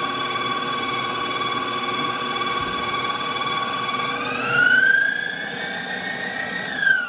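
Stand mixer's motor whining steadily as its wire whisk beats egg whites into whipped cream. About four seconds in the pitch rises as the speed is brought up, then falls near the end as the mixer winds down.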